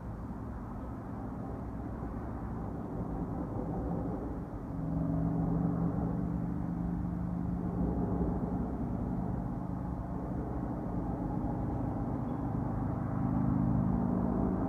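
Unexplained low droning hum in the night sky over a steady rumble, with two steady low tones that swell in about five seconds in and grow louder again near the end.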